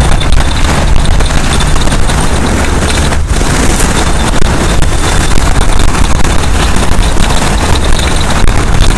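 Strong wind buffeting the microphone in a loud, steady rumble, with waves breaking against the shore rocks underneath.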